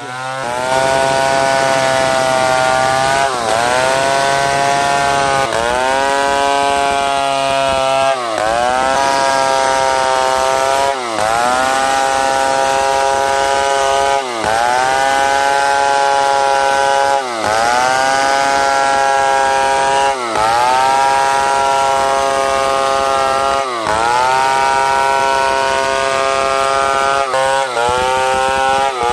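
Large two-stroke chainsaw running at high revs through a log. Its pitch sags and climbs back roughly every three seconds as the chain loads up in the cut and recovers.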